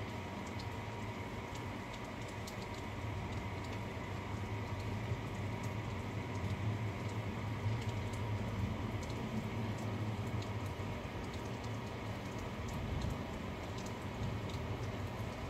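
Steady rain with scattered drops tapping close by, and a low rumble swelling and fading through the middle.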